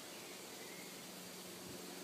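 Faint, steady hiss of a breeze through woodland trees, with a faint low hum joining about a second in.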